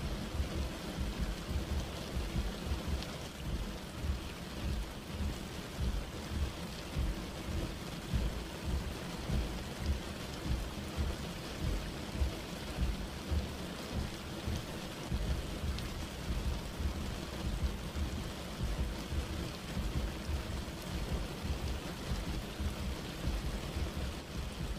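Heavy rain pouring steadily, with a low rumble underneath throughout.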